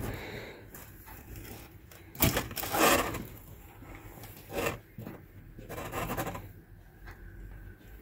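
Rubbing and scraping as cable and a wooden board are handled at a ceiling corner. The longest and loudest scrape comes about two seconds in, with shorter ones near five and six seconds.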